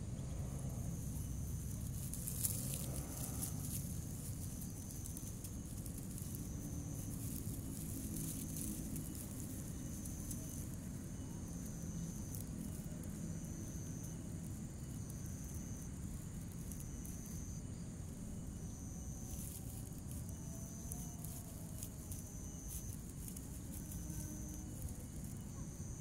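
An insect repeats a short, high, steady buzzing note about once every second and a quarter, over a low rumble. One sharp click comes about two and a half seconds in.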